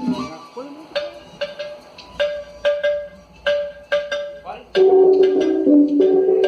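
Music played over a sonidero sound system: a string of sharp, ringing percussive hits, then about five seconds in full, louder music comes in.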